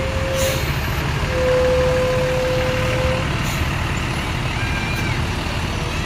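Bus's Basuri horn sounding a pure, flute-like note, cut off about half a second in and then held again at the same pitch for about two seconds, over the steady rumble of the bus engine.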